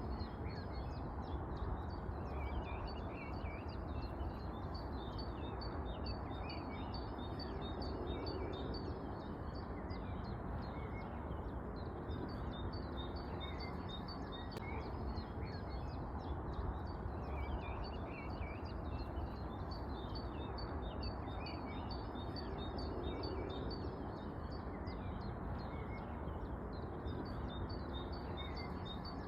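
Many small birds chirping and twittering continuously, over a steady low background noise.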